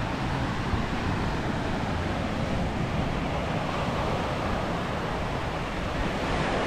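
Steady rushing of wind and surf, with wind buffeting the microphone.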